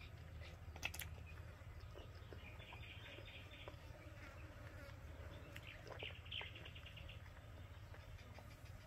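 Faint outdoor ambience of small creatures chirping in short repeated trills over a low steady hum, with a sharp click about a second in and a smaller one around six seconds in.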